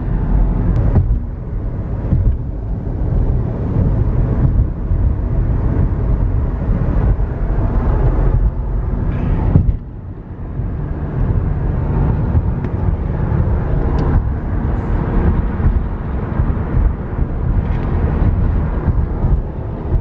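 Steady rumble of a car driving at highway speed, heard from inside the cabin: engine and tyre noise with wind, easing briefly about halfway through.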